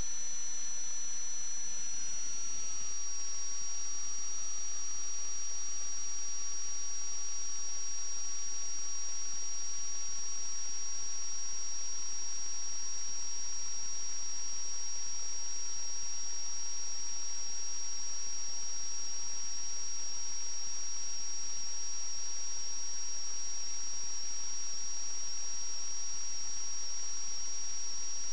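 Steady electronic hiss with two high, steady whining tones and a lower tone that glides down in pitch about two seconds in, then holds. This is electrical noise on the sewer inspection camera recorder's audio, with no microphone sound.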